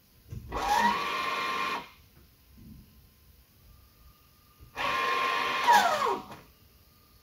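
A small electric motor whines twice, each run about a second and a half. On the first run the pitch climbs and then holds as it spins up; on the second it falls away as it winds down. This is the motor running as the electronic parking brake is switched. A faint steady high hum continues between and after the runs.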